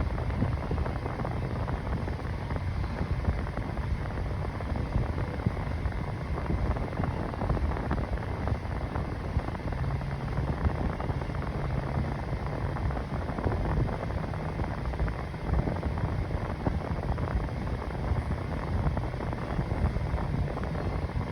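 Mainstays 9-inch box fan running steadily on its high speed: an even rush of air with a faint low motor hum underneath.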